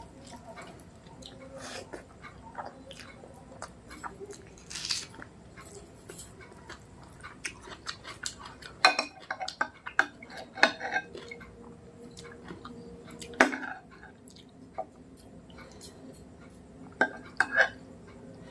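A person eating rice and mutton curry: chewing, with scattered clinks and scrapes on a plate and a few louder knocks.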